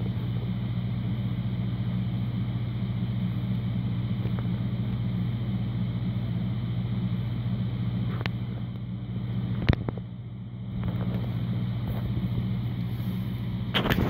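Old Kenmore refrigerator running, with a steady low hum from its compressor and condenser fan. A couple of short clicks come about eight and ten seconds in.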